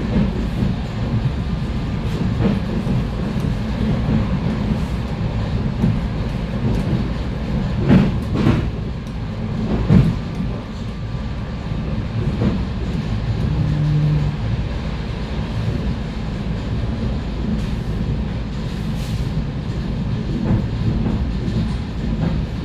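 ET2M electric multiple unit running between stations: a steady rumble of wheels on rail, with a few sharper knocks from the wheels striking rail joints about 8 and 10 seconds in.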